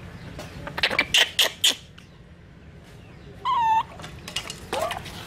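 Baby monkey giving a short high-pitched call about three and a half seconds in, with a fainter rising call just before the end. A few sharp clicks and clatters come in the first two seconds.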